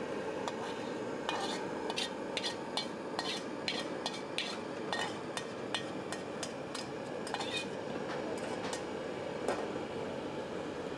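Cutlery clinking and scraping against a plate while eating: a quick irregular series of light clicks over a steady background hum.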